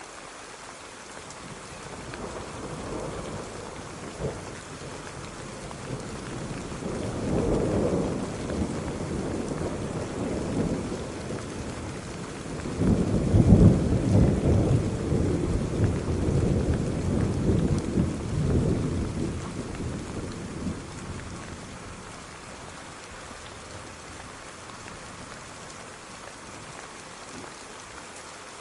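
Steady rain falling, with a long rolling rumble of thunder that builds slowly, is loudest about halfway through, and fades away to leave only the rain again.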